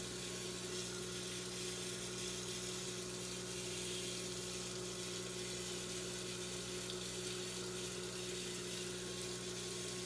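Steady, even hiss with a constant low electrical hum underneath: background room noise with no distinct events.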